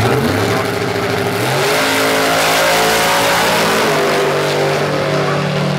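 Two vintage-bodied drag-racing hot rods running side by side at full throttle down the strip, their engines loud and steady. The engine pitch steps up about a second and a half in and again near four seconds.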